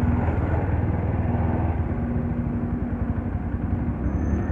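Motorcycle engine running steadily with a dense, even low rumble.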